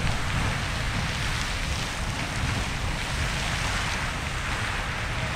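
Riverside Geyser in eruption: a steady rushing hiss of its water and steam column, with a low wind rumble on the microphone.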